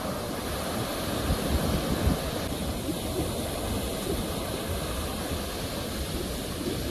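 Sea waves washing on the shore, a steady rushing wash with a louder surge from about one to two seconds in.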